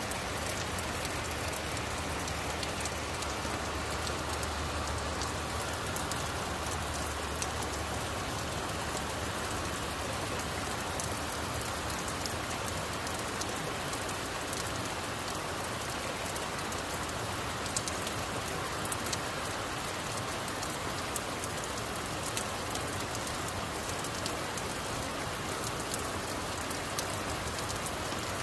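Heavy rain falling steadily on a street and parked cars: a dense, even hiss with many fine drop ticks.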